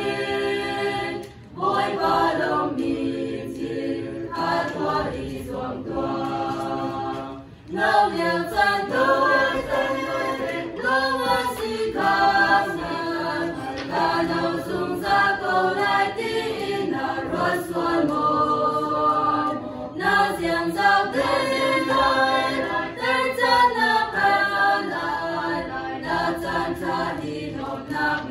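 Small church choir of young women and men singing a hymn, with two brief breaks between phrases, about a second and a half in and again about seven and a half seconds in.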